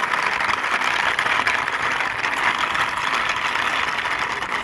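Hard plastic wheels of a toy dump truck rolling along a rough stone ledge, pushed by hand: a steady gritty rolling noise.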